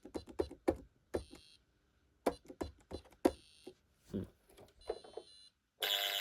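Keypad of a 1990s Pyronix Paragon Super intruder alarm: a series of button clicks with three short, high beeps. Near the end the alarm sounder sets off with a much louder, steady multi-tone sound.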